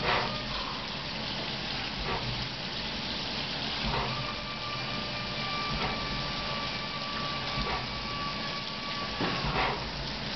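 Fadal CNC mill cutting steel humbucker keeper bars under flood coolant: a steady hiss of coolant spray over the running machine, with a short burst roughly every two seconds and a thin steady whine through the middle.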